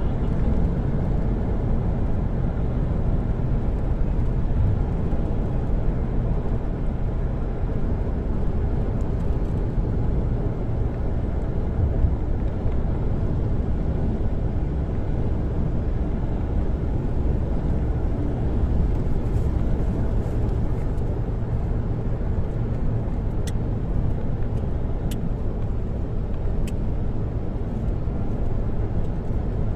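A motor running steadily while travelling, a constant low rumble mixed with wind, with a few faint ticks about three-quarters of the way through.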